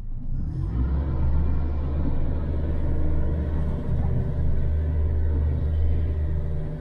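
Boat's outboard engine running under way, a steady low drone heard from inside the pilothouse cabin, coming up to full level a little under a second in.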